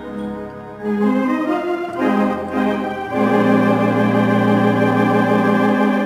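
Barton theatre pipe organ being played: a few notes stepping upward, then a full held chord from about three seconds in that is released near the end.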